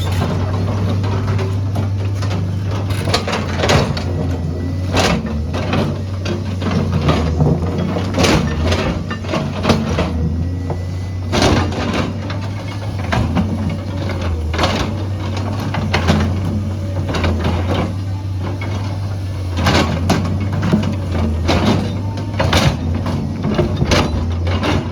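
Diesel engine of a heavy earthmoving machine running steadily under load, with frequent sharp knocks and clanks of the bucket working rock and earth.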